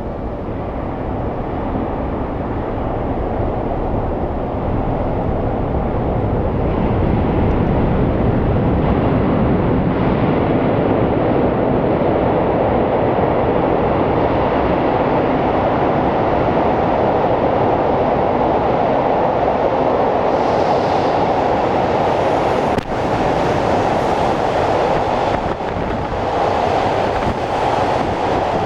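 Steady rumbling noise of a moving vehicle, growing louder over the first several seconds and then holding steady, with a brief dip about two-thirds of the way through.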